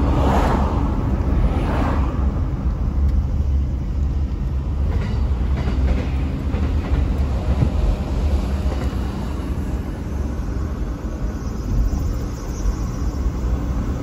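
Limited express electric train running past, a steady low rumble of wheels on rails, with some louder clatter in the first couple of seconds.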